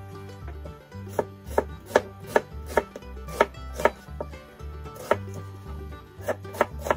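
Kitchen knife chopping on a cutting board: a run of sharp strokes, about two to three a second, starting about a second in, with a short pause around the middle, over background music.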